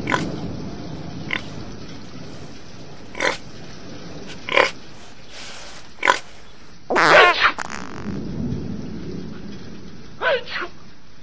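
Pig grunting in short single calls every second or so, with one longer, louder squeal about seven seconds in, over a steady hiss.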